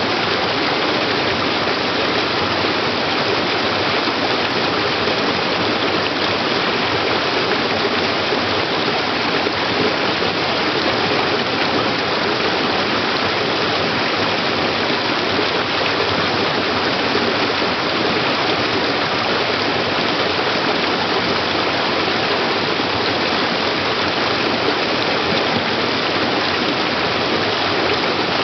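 Small waterfall in a rocky forest stream, water pouring steadily over the rocks and splashing into a pool below.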